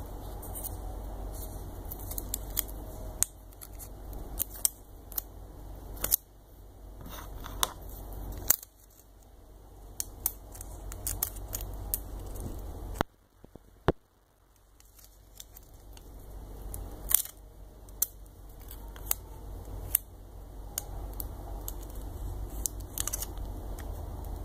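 Irregular small sharp clicks and crinkles of fingers handling tiny stick-on heat sinks and the plastic backing of thermal transfer tape, over a low steady hum that drops away briefly about halfway through.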